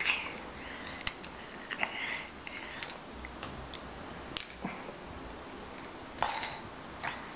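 A few short clicks and brief breathy noises as a toddler eats cereal rings and threads them onto a stick over a plastic bowl.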